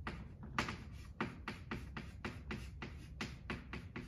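Chalk clicking against a blackboard as characters are written by hand: a quick run of short sharp taps, about four or five a second.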